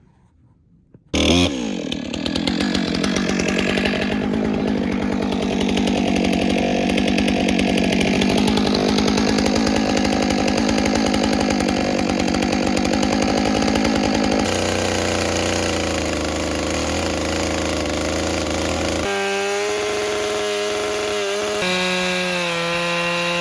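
Chainsaw running at high revs as it cuts into a big, dense locust log. It starts abruptly about a second in, and its note shifts about two-thirds of the way through, ending as a steadier, clearer engine pitch.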